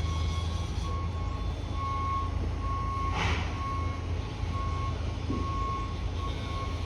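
A construction vehicle's warning alarm beeping on one steady pitch, about one beep every 0.8 seconds, over a steady low rumble. A brief hiss comes about three seconds in.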